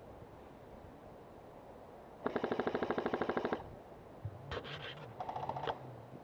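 Airsoft electric rifle firing a full-auto burst of about ten shots a second for just over a second, then two shorter, quieter bursts of automatic airsoft fire.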